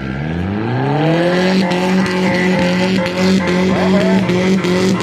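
A demolition derby car's engine revving up hard over about a second and a half, then held at high revs, with a few short knocks.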